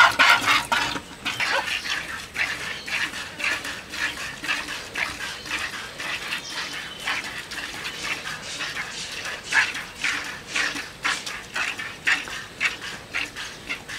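Milk squirting from a cow's teats into a plastic bucket during hand milking: short hissing spurts in a steady rhythm of about two a second, louder at the start and softer after about a second.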